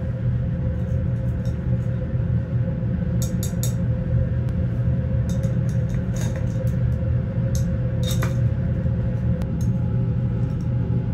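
Metal tongs clicking and clinking against a glass beaker, zinc pieces and coins a dozen or so times, over a steady low hum.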